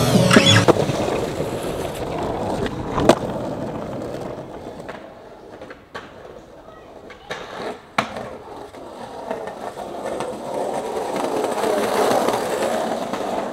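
Skateboard sounds: water splashing off a fountain ledge at the start, then sharp board clacks about three and eight seconds in, and hard wheels rolling on paving stones, growing louder toward the end.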